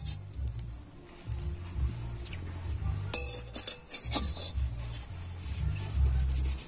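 A flat metal spatula scrapes and taps against a metal kadai as a thin rice-flour crepe is rolled up, with a few sharp scrapes about three to four seconds in. Low background music plays underneath.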